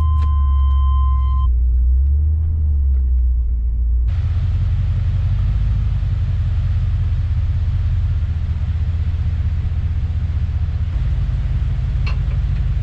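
Pickup truck running, heard from inside the cab as a steady low engine rumble. A chime sounds at the start and stops after about a second and a half, and from about four seconds in a steady hiss joins the rumble.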